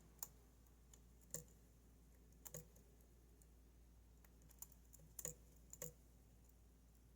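Faint, sparse metallic clicks, about seven spread over several seconds, from a lock pick probing and lifting the pins of a Goal Z pin-tumbler lock.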